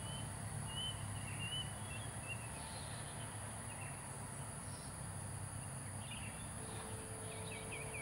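Faint outdoor ambience: distant bird calls, a series of short whistled notes in the first few seconds and a few more near the end, over a steady high-pitched insect drone.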